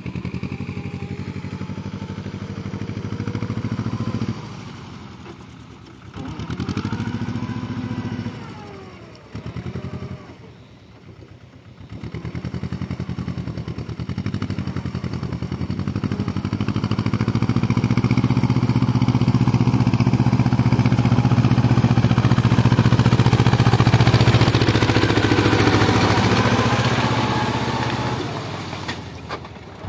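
A Mahindra Jivo 245 mini tractor's 24 hp diesel engine runs under load while it pulls a rotavator through flooded paddy mud. The engine note rises and falls a few times and grows louder as the tractor comes close.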